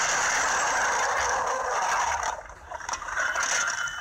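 A car crashing, heard from inside the cabin: a loud scraping, rattling noise that eases about two seconds in, then picks up again.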